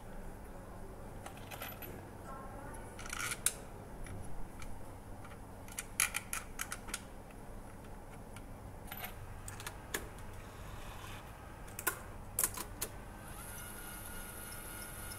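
Light clicks and taps of a black plastic housing being handled and pressed into place on a metal assembly fixture, in small clusters, over a steady low hum of factory machinery.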